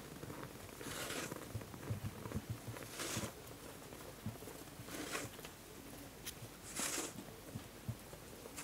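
Broom sweeping snow in short swishing strokes, about one every two seconds, with soft footfalls in snow beneath.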